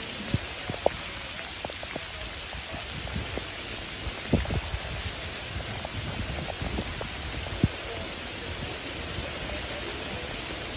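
Heavy rain pouring steadily onto a flooded street, with a few short sharp knocks now and then.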